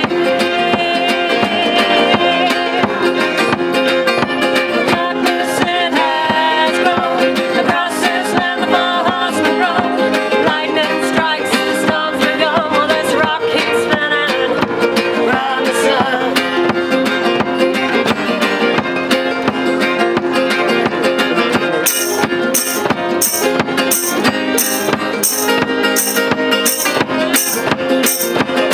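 Acoustic folk band playing an instrumental passage, with strummed acoustic guitars and a fiddle carrying the melody. About two-thirds of the way in, a shaken percussion beat comes in steadily, about twice a second.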